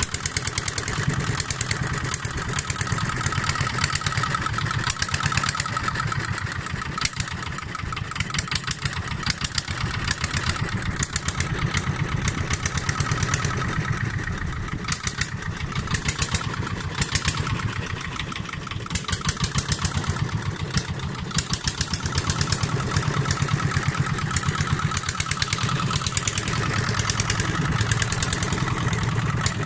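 Small boat engine running steadily with a fast, even chugging beat as the boat motors along a narrow canal.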